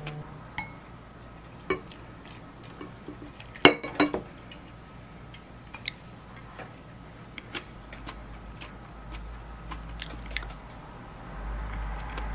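A spoon clinking and scraping against ceramic and glass bowls while eating, in scattered light clicks, with the loudest clatters about three and a half and four seconds in.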